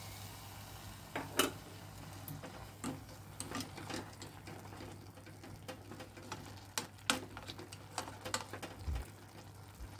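Black slotted spatula stirring wet grated carrots in a kadai, knocking and scraping against the pan in irregular light clicks, over a faint sizzle.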